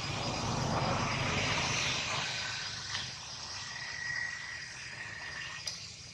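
A broad rushing noise swells over the first couple of seconds and slowly fades. A steady high insect tone runs underneath.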